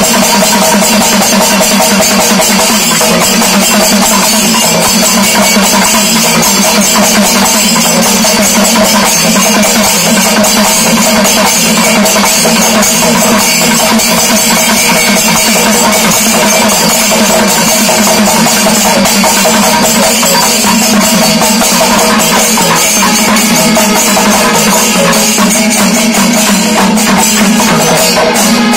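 Kerala temple percussion ensemble playing loudly: maddalam barrel drums beaten by hand, with ilathalam hand cymbals clashing, in a dense unbroken rhythm.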